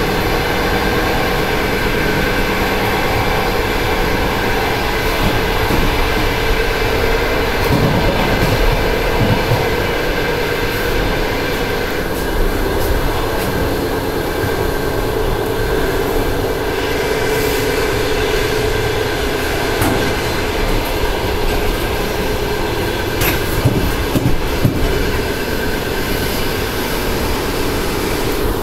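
ET2M electric multiple unit running, heard from inside the carriage at the doors: a steady rumble of wheels on rail with a held hum, broken by a few sharp clicks and knocks about a third of the way in and again later on.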